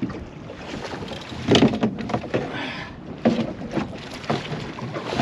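Irregular knocks and clatter inside a small boat, with wind on the microphone, as a hooked lingcod is brought to the net.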